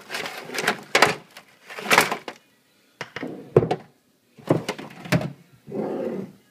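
Repeated knocks and clatter of grease guns being handled on a bench, in about five separate bouts, with a duller rub near the end.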